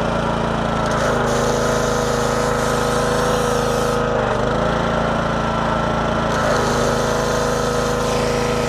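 A Honda single-cylinder gas engine runs steadily, driving a freshly rebuilt pressure washer pump on test, with the hiss of the high-pressure spray from the wand. The spray cuts off about four seconds in, the engine speed dips briefly, and the spray resumes about two seconds later.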